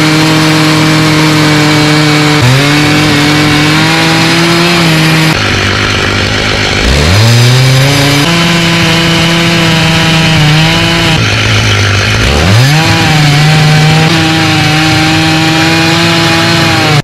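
Stihl MS 880 chainsaw's big two-stroke engine at full throttle, ripping lengthwise through a poplar log in a chainsaw mill, with the chain cutting steadily into the wood. Twice, about 7 and 12.5 seconds in, the engine drops off and revs back up before cutting on. The sound stops abruptly at the very end.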